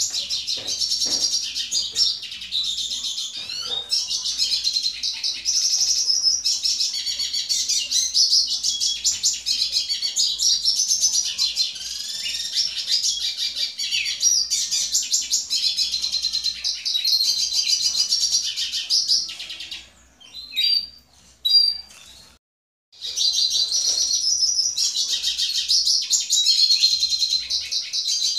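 A caged male siskin (pintassilgo tarin) singing a long, rapid twittering song, high-pitched and continuous, to a female Belgian canary. It breaks off about twenty seconds in, leaving a few single chirps, then starts again about three seconds later.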